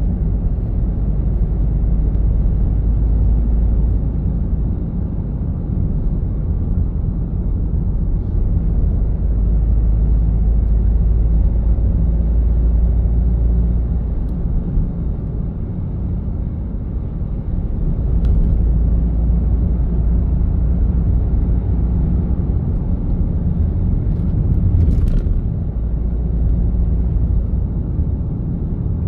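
A car being driven along a road, giving a steady low rumble of engine and tyres that swells and eases slightly. A faint short hiss comes near the end.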